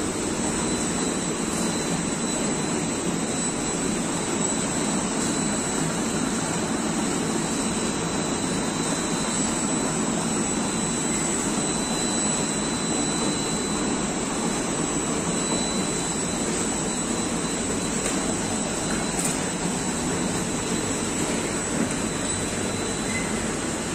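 Multi-head servo oil filling machine running, a steady mechanical hum and hiss with a thin high whine over it.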